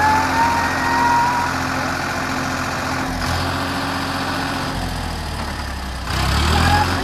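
Farmtrac 45 tractor's three-cylinder diesel engine running hard under load as the stuck tractor tries to drive out of deep sand. The engine note climbs briefly at the start, holds steady, and rises again about six seconds in.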